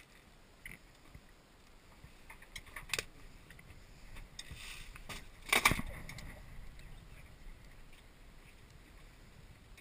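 Handling noise of a boat-mounted camera being turned: a few light clicks, then one loud knock a little past halfway, over faint wind and water.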